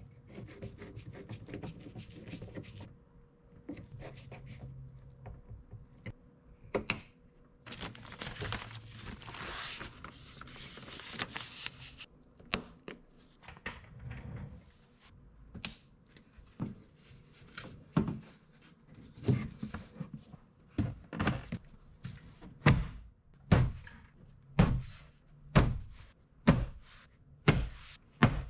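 Door trim panel of a Honda Civic rear door being struck by hand to snap its retaining clips into place, a row of thuds about one a second in the second half. Before that come rustling of the door's plastic moisture barrier and light clicks of parts being handled.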